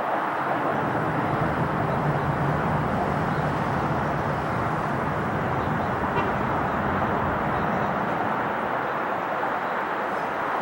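Steady jet engine noise from a Boeing 747 freighter at the airport: an even roar with a faint low hum in the first few seconds.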